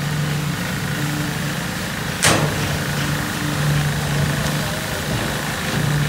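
Construction machinery engine running steadily with a low hum, with a single sharp click about two seconds in.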